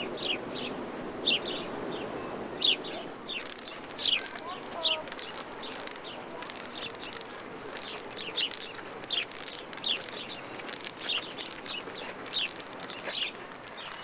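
A small bird calling outdoors, repeating a short, high, downward-sweeping chirp over and over, about once or twice a second.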